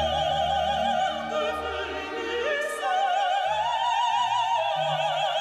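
Classical music: an operatic voice singing long held notes with wide vibrato, climbing to a higher note about halfway through, over orchestral accompaniment with low bass notes.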